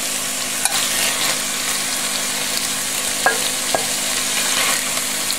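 Beef cubes sizzling steadily in hot oil in an enamelled Dutch oven, with a few light clinks of a metal slotted spoon against the pot and plate as the browned meat is lifted out.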